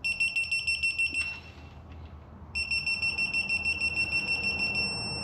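Electronic torque angle gauge beeping rapidly, a high pulsing tone of about seven beeps a second, in two bursts with a pause of about a second between them: the alert that the set 180-degree turn on the bolt is being reached.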